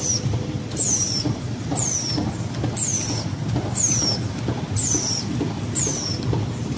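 High-speed flexo printer line for corrugated board running, with a steady low mechanical rumble. A high squeal falls in pitch about once a second with each machine cycle.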